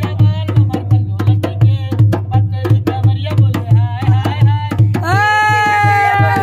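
Indian song with a singer over a steady hand-drum beat. About five seconds in, the voice holds one long note that sags slightly in pitch.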